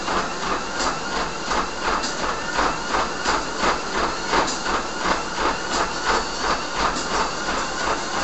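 Running footfalls thudding on a home treadmill's belt at 7 mph, a steady rhythm of about three strikes a second, over the treadmill's continuous whir.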